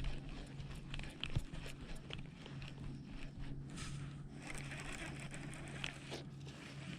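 Quiet fishing-boat sounds: a steady low hum throughout, with scattered small clicks and knocks and a brief rustling about four to six seconds in.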